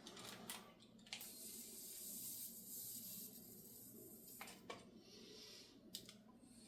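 Plasma arc igniter's electric arc hissing faintly and steadily for about three seconds, starting and stopping abruptly, with a few faint clicks around it.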